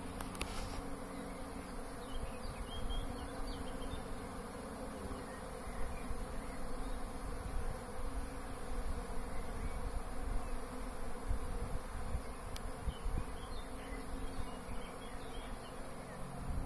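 Honeybees flying in numbers around their hive entrances: a steady, unbroken hum of many bees.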